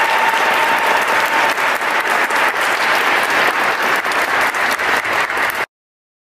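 Applause from many people clapping, which cuts off suddenly into silence near the end.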